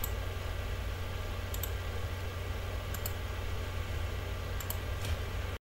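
Four faint computer mouse clicks, about a second and a half apart, over a steady low hum.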